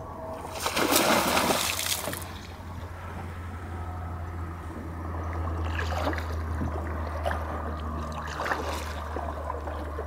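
An American alligator sliding off the bank into the river with a splash about a second in, followed by water lapping and dripping, with two fainter splashes later.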